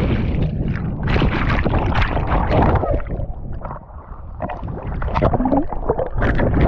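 Water splashing and churning around an action camera in a lake, with muffled underwater gurgling and rumbling as the camera dips under and breaks the surface.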